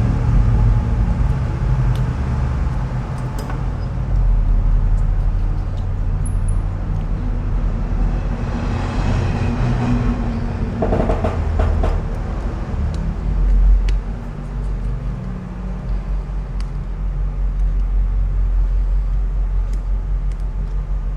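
Steady low rumble of background road traffic, with a few small scattered clicks.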